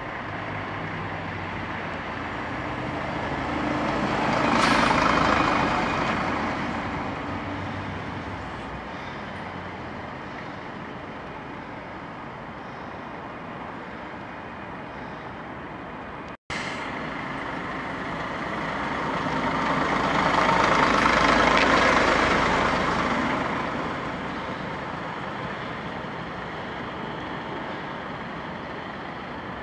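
Single-deck diesel bus driving past: engine and tyre noise swell to a peak about five seconds in and fade away. After a brief dropout, a second pass swells and fades again about twenty seconds in.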